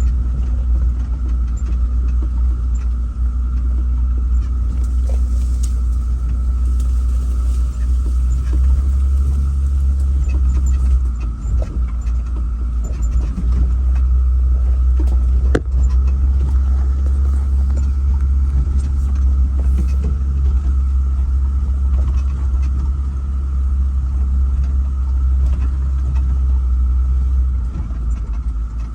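Toyota Land Cruiser 80 Series driving up a rocky dirt logging road: a steady low rumble of engine and road noise, with scattered knocks and rattles from the rough surface.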